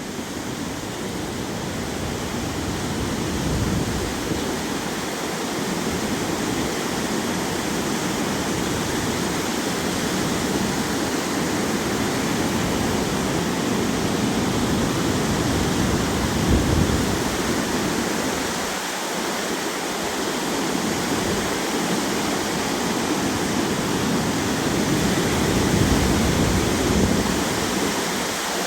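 Strong wind buffeting the microphone, heavy and gusty in the lows, over waves breaking continuously on the Lake Huron shore.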